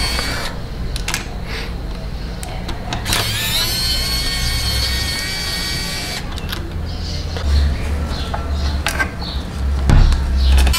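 Small motor of a cordless electric precision screwdriver whirring in spells as it backs screws out of a model car's chassis, with a few sharp clicks of small parts being handled, the loudest near the end.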